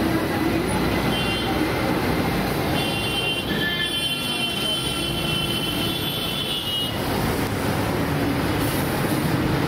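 Steady roaring noise of a gas burner under a wok of frying Manchurian, mixed with street traffic. A high whistling tone comes in about three seconds in and stops near seven seconds.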